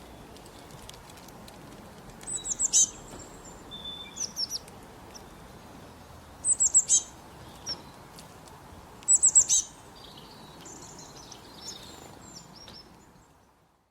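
Songbird singing: three times, about every three and a half seconds, it gives a short bright phrase of four or five quick, very high, falling notes, with softer chirps in between, over faint steady background noise.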